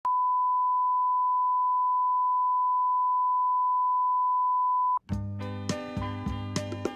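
A steady, single pure electronic tone, like a test tone, held for about five seconds and then cut off abruptly. Instrumental background music with a beat starts right after.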